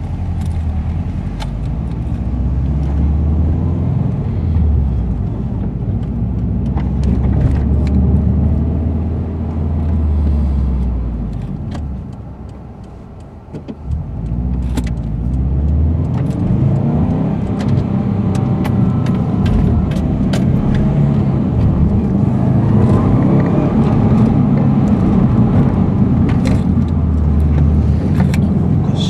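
Subaru Impreza driving, heard from inside the cabin: engine and road noise. The engine eases off and goes quieter about halfway through, then picks up again with its pitch rising as the car accelerates.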